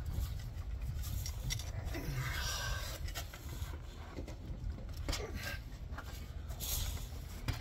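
A torque wrench being heaved on a shock-absorber mounting bolt that is hard to turn: a steady low rumble of handling noise with a few scattered faint clicks and knocks of tool on metal.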